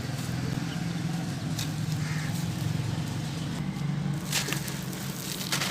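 Gritty, chalky heart-shaped pieces being crumbled, with a fine grainy crackle and a few sharp crunches, over a steady low background hum.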